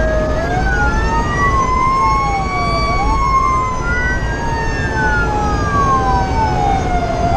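Fire engine siren wailing in slow rising and falling sweeps, several wail lines overlapping and crossing, heard from inside the cab over the truck's steady engine and road noise.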